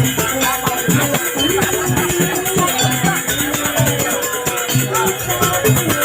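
Live Jaranan gamelan music playing a fast sampak, a dense driving rhythm with a steady jingling rattle over pitched drum and melody lines.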